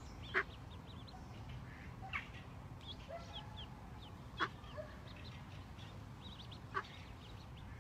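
Mallard ducklings peeping over and over with high, thin calls, while the mallard hen gives four short, louder calls about two seconds apart.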